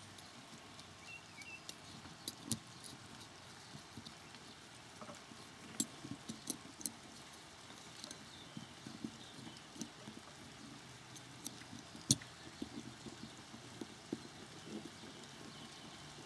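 Faint handling noise from an M1 carbine's trigger housing as the sear is worked into place and its pin lined up: scattered light clicks and taps of small metal parts under the fingers, the sharpest about twelve seconds in.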